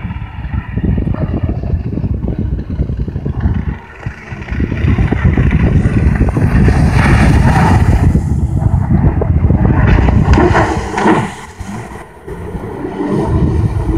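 Jet ski engine running as the craft speeds and turns across the water, louder for several seconds in the middle, under a heavy rumble of wind on the microphone.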